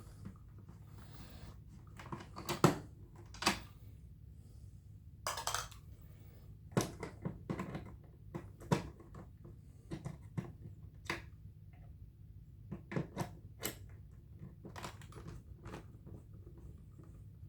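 Plastic housing of a Hoover WindTunnel upright vacuum being handled as its back panel is taken off: scattered clicks and knocks with a brief scrape, the loudest knock about two and a half seconds in. A low steady hum sits underneath.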